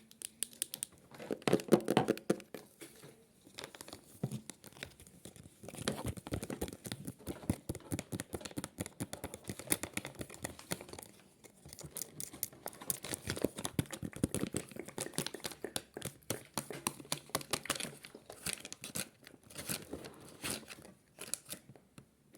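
Rapid crinkling and crackling handling noise close to the microphone, coming in uneven surges with short pauses.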